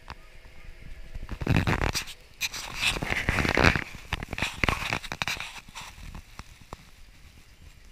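Scratching and rustling handling noise from a knit glove rubbing over the camera's microphone, in quick irregular scrapes and crackles, loudest for a few seconds in the middle.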